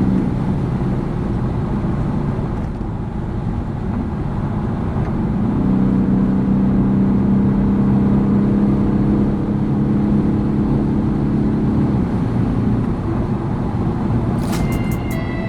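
BMW 420d G22's four-cylinder turbodiesel drones steadily at high speed over road and wind noise. It eases off for a few seconds, then comes back stronger and holds before fading near the end.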